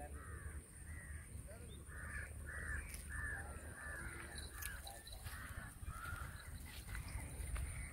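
A bird calling over and over, about a dozen short calls in quick succession that stop about six and a half seconds in.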